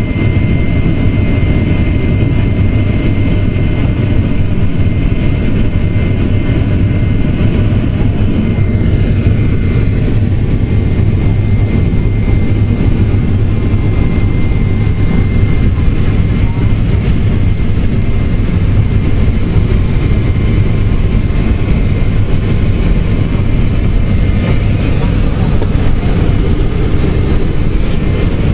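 Boeing 767-400 jet engine and airflow noise heard inside the passenger cabin during departure: a loud, steady deep rumble, with a thin high whine over it that fades out about halfway through.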